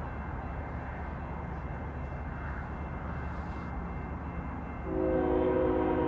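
A passenger train runs past with a steady low rumble. Near the end its locomotive's multi-tone air horn starts sounding a chord and holds it.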